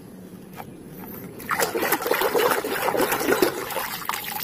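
Water splashing as a small toy bus is swished and rinsed by hand in water. The splashing starts about a second and a half in and is irregular.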